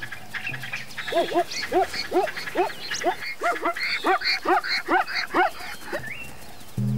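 Plains zebra barking: a rapid series of about a dozen short yelping calls, each rising and falling in pitch, about three a second, starting about a second in and stopping near the end.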